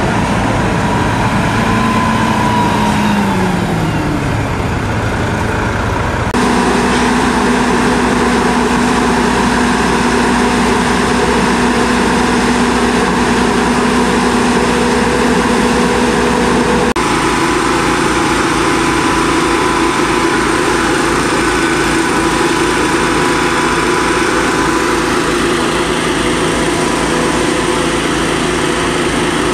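An engine running steadily and loudly. Its pitch falls over the first few seconds and then holds level, and its tone changes abruptly twice, about six and about seventeen seconds in.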